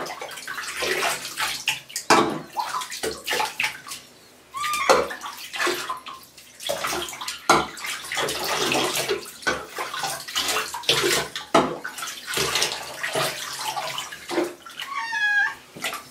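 Bathwater splashing and sloshing in a bathtub as a wet cat is washed by hand, in irregular scoops. A brief wavering high-pitched sound comes near the end.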